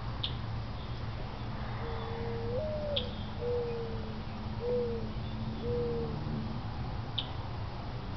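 Mourning dove cooing: one longer coo that rises in pitch, followed by three shorter, lower coos.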